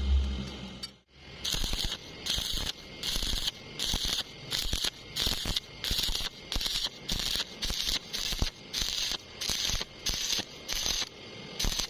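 Welding arc struck in short, evenly spaced bursts, about two a second, each a brief crackling hiss: stitch welding, one short weld after another.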